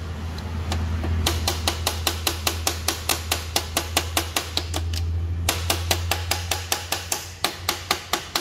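Rapid, even light hammer taps on metal, about six a second with a short pause midway, as a stuck part of a Ford Ranger door latch is worked loose, over a steady low hum.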